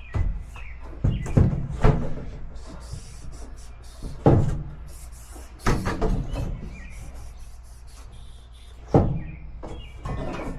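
A series of irregular knocks and thumps, about seven in all, with quieter rustling and scraping between them, as of panels and materials being handled and set down.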